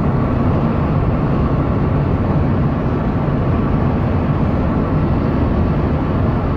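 Steady road and wind noise of a car driving at speed, heard from the passenger-side window.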